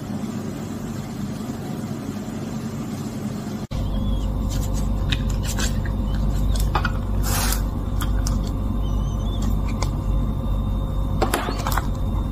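Hands working puff pastry on baking paper, pressing a plastic lid into it to cut a circle: short rustles and light taps over a steady low hum.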